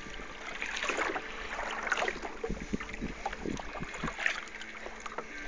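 Water lapping and sloshing against the hull of a small fishing boat, with scattered light knocks and ticks.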